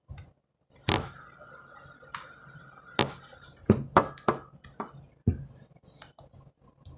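Irregular knocks and taps of hands handling a hard device close to the microphone, about nine sharp hits at uneven intervals.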